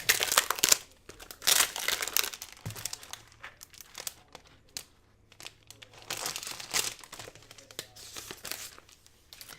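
Packaging crinkling and rustling in irregular bursts as it is opened and thin vellum sheets are handled, with a brief tearing sound; loudest in the first two seconds and again about six seconds in.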